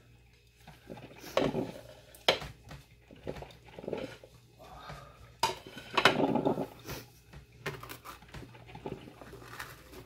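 Kitchen utensils handled against dishes: a spatula and knife clinking and scraping against a glass baking dish and a plate, with several sharp clinks spread out among softer scraping.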